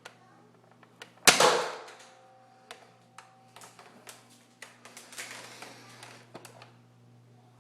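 Homemade spring-powered Nerf blaster firing a shotgun-loaded volley of darts: one sharp, loud shot about a second in, followed by scattered lighter clicks and rattles.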